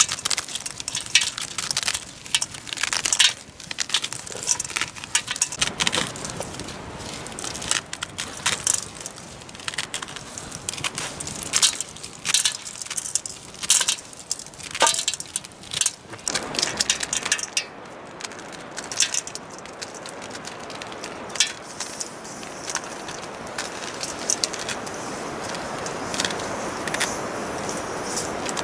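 Dried maize kernels being shelled by hand off the cob, crackling and rattling as they break loose and fall into a steel plate. Dense clicking for the first half, growing sparser later, while a steady rushing noise rises toward the end.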